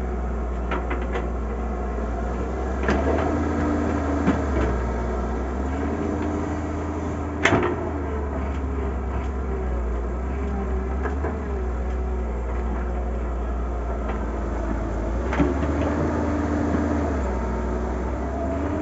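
Wheeled excavator's diesel engine running under hydraulic load, its pitch rising and falling as the boom and bucket work. A few sharp clanks and knocks come from the bucket and stones, the loudest about seven and a half seconds in.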